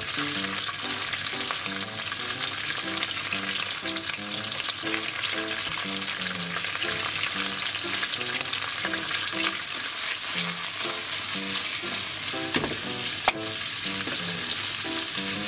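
Diced block bacon frying in hot olive oil in a frying pan, a steady dense sizzle and crackle, as pieces of onion go into the fat. A single sharp tap sounds near the end.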